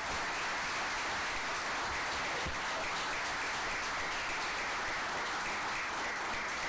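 A small crowd of a few dozen people applauding, steady clapping that holds throughout.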